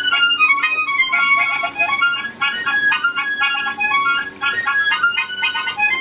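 Harmonica playing a quick melody of short notes, often sounding several reeds at once as chords, with brief breaks between phrases.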